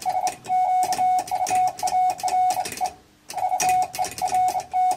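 Morse code sent by hand on a straight key: a tone of about 700 Hz keyed into dots and dashes, with the key's contacts clicking on each element and a short break about three seconds in. It is the CW signal of a home-brew 1-watt QRP transmitter as it goes out.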